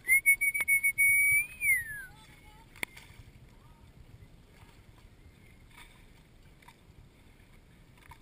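A loud, clear whistle of about two seconds. It begins in short broken blasts, holds one steady pitch, then rises briefly and slides down as it dies away. A single sharp click follows about a second later.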